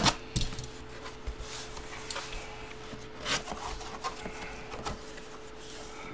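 A flat cardboard box being handled and opened by hand: scattered knocks, scrapes and rubbing of cardboard, the sharpest knock at the very start. A faint steady hum runs underneath.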